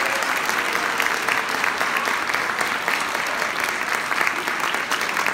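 Audience applauding steadily, the dense clatter of many hands clapping.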